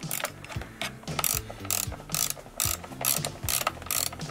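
Ratchet wrench clicking in short strokes as it works a nut, about two or three clicks a second.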